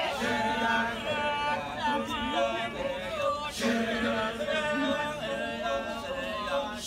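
Balinese kecak chorus: a large group of men singing and chanting without instruments, with long held notes.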